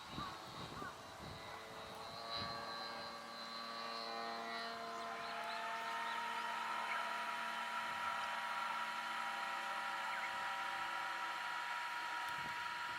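Radio-controlled F3A aerobatic airplane flying, its motor and propeller giving a steady pitched drone. The sound grows louder from about three seconds in, the pitch rises about five seconds in as the throttle comes up, then holds steady.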